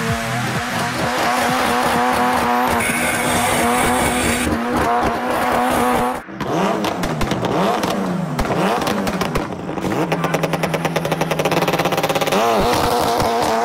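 A vehicle motor holds a steady pitch for about six seconds, then after a brief dip revs up and down over and over in quick swells.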